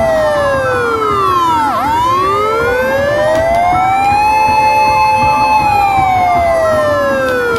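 Mighty Cash Nu Xia slot machine's win-celebration siren: a wailing siren tone that slides slowly down, rises again, holds high briefly, then starts falling once more. Steady electronic tones from the machine run underneath.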